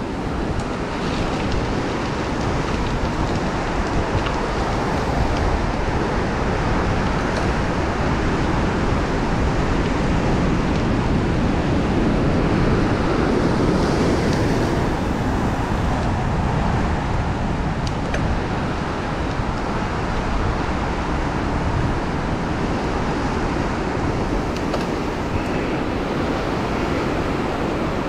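Steady rushing wind noise on a bicycle-mounted camera's microphone while riding, swelling slightly about halfway through.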